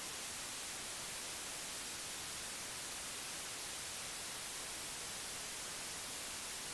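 Analog television static: a steady, even hiss of white noise, strongest in the treble.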